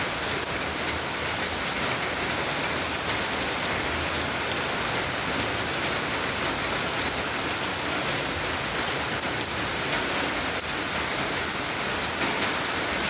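Steady rain falling on surfaces, an even hiss with scattered individual drop ticks.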